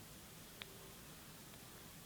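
Near silence: faint room tone between sneezes, with one small click about half a second in.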